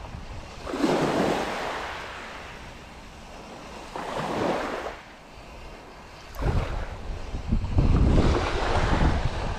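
Small waves washing onto a pebble beach, rising and falling in swells. From about six seconds in, wind buffets the microphone with a heavy low rumble.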